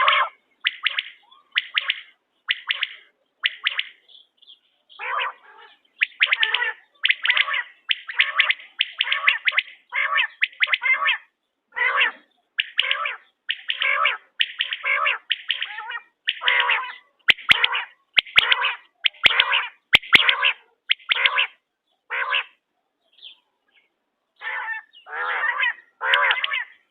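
Quail calling over and over in short, clipped calls, about one or two a second, with a brief pause a few seconds in and another near the end.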